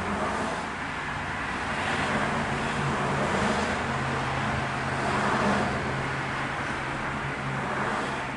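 Steady rush of road traffic, swelling a few times as vehicles pass, over a low steady hum.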